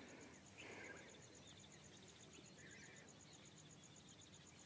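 Near silence: faint outdoor ambience with an insect trilling in steady, rapid high pulses, about seven a second, and a faint chirp or two.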